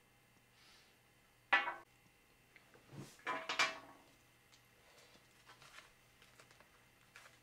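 Small metal parts clinking on a hard surface, as tiny laptop case screws and a screwdriver are handled: one sharp clatter about a second and a half in, a quick cluster of clatters around three seconds, then a few faint ticks.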